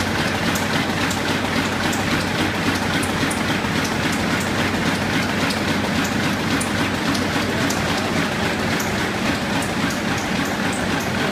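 Web stacker running at speed, its belts and rollers feeding printed sheets: a steady mechanical clatter over a low motor hum, with a dense patter of light ticks.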